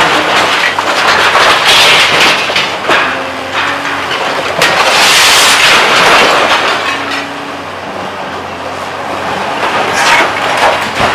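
Volvo tracked excavator demolishing a building: loud crashing and crunching of breaking debris in several surges, a couple of seconds in, around the middle and again near the end, over the excavator's diesel engine running.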